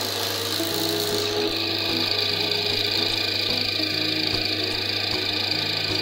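Electric coil-winding machine starting up and running steadily with a high whine, turning a ceiling fan stator on its spindle.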